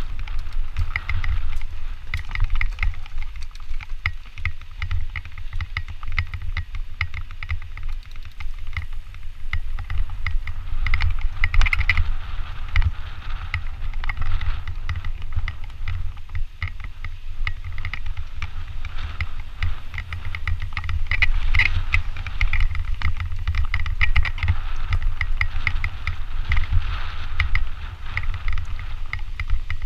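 Mountain bike ridden along a gravel singletrack: tyres crunching over loose stones and the bike rattling over bumps, with a steady low rumble of wind buffeting the helmet camera's microphone.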